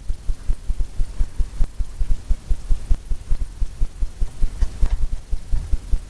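Paintbrush working against a stretched canvas, giving a quick, uneven run of dull low thumps, several a second.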